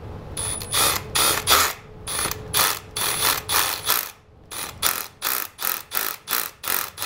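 Cordless Milwaukee M12 rotary hammer with a 5/32-inch masonry bit, pulsed in quick short bursts, about three a second, as the bit is eased into concrete to start a Tapcon screw hole. Right at the end it begins to run continuously.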